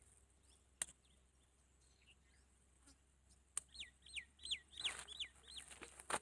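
A bird calls a quick run of about six falling notes a little past the middle. Around it come a few sharp snaps as okra pods are broken off the plant by hand.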